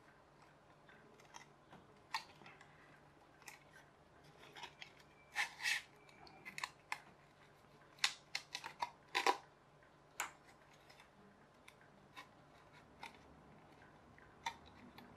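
Scattered clicks and short scrapes, busiest in the middle, as a polystyrene pizza-tray foam wing is handled and pushed onto a 3D-printed plastic wing mount.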